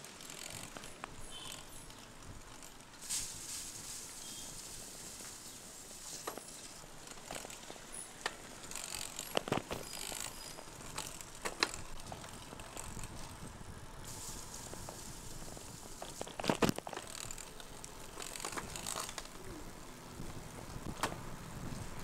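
Road bike riding on a wet road in the rain: a steady hiss of tyres and spray, with the freewheel ratcheting while coasting. A few sharp knocks from the bike break through, the loudest about three quarters of the way in.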